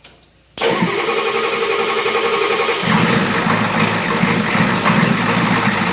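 1986 Ford F250's 6.9-litre IDI V8 diesel being cranked by the starter for about two seconds, then catching about three seconds in and running at idle. This follows bleeding air from the fuel filter, and the number 8 injector is still leaking.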